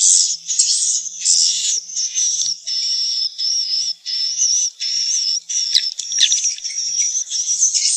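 Swiftlets twittering: quick runs of high, buzzy chirps with thin whistled notes, repeated several times a second without a break. This is the kind of swiftlet call recording played to draw the birds into a nesting house.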